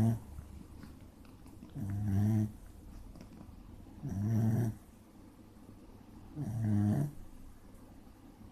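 A sleeping pet snoring: three snores about two and a quarter seconds apart, each a low rumbling breath lasting about half a second, with the tail of another right at the start.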